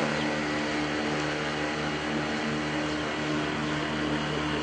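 A boat's motor running at a steady, unchanging pitch.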